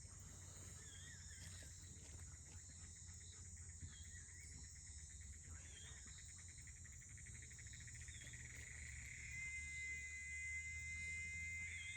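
Evening insect chorus with a steady high cricket trill and a few short warbling chirps. From about six seconds in, an electric-sounding insect buzz rises in pitch and settles into a steady drone: the sound the family calls the "electricity cricket".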